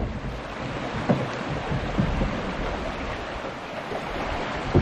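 Rushing creek water with wind buffeting the microphone, and a few dull knocks.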